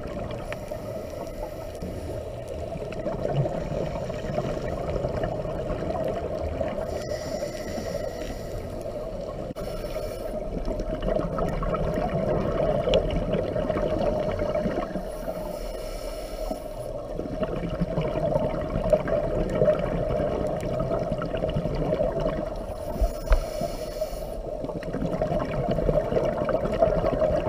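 Scuba regulator exhaust bubbles gurgling in bursts every few seconds as the diver breathes out, over a steady muffled hum of the camera recording underwater.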